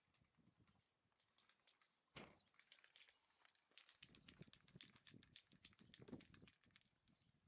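Near silence with faint scuffling and a run of light ticks, strongest from about four to six and a half seconds in: dogs and puppies moving about on sandy dirt.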